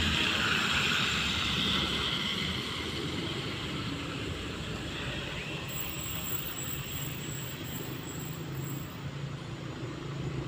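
A motor vehicle passing on the road, loudest at the start and fading away over the first two seconds, then a steady low rumble.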